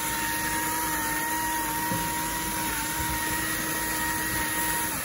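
Electric pepper grinder's small motor running at one steady pitch for about five seconds, then cutting off near the end, over the sizzle of vegetables stir-frying in a wok.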